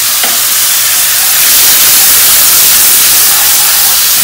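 Ground spices sizzling loudly in hot oil in a wok, a steady hiss from a splash of water added so the spices don't burn.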